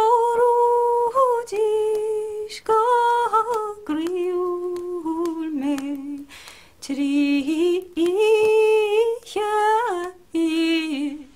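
A woman's voice wailing an unaccompanied lament, the keening of an Irish wake: long held notes in short phrases with brief breaks between them. The tune dips lower in the middle and climbs again near the end.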